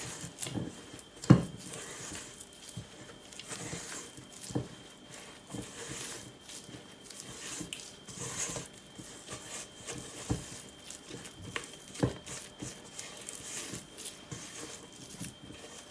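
Spatula folding and scraping macaron batter, ground almond and icing sugar worked into meringue, in a mixing bowl, with a few sharp knocks of the spatula against the bowl, the loudest about a second in.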